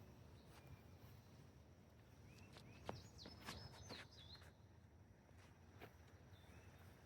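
Faint chirps of small birds, several short calls between about two and six seconds in, with a few sharp clicks around three seconds in, over a low steady rumble.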